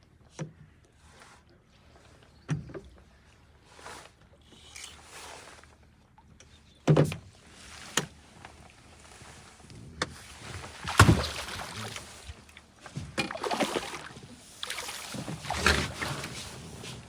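Knocks against a small fishing boat and splashing water as a hooked trout is played and brought in. Several sharp knocks stand out, the loudest about seven and eleven seconds in, with the splashing growing busier over the last few seconds.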